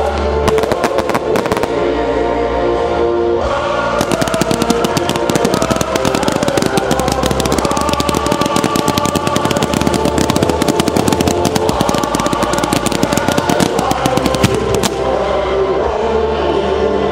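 Aerial fireworks display: a few separate bangs, then from about four seconds in a dense, rapid string of small reports that thins out near the end, over music.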